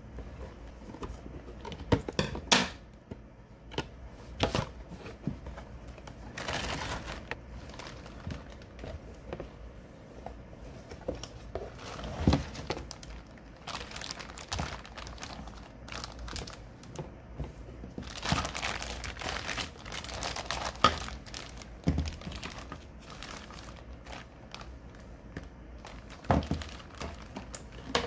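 Clear plastic bags crinkling as a boxed figure and its round display base are handled and unwrapped, with a few sharp knocks of parts against the box or table.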